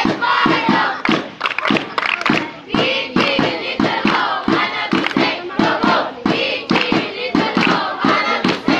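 A group of young voices chanting or singing together in chorus, with rhythmic hand clapping.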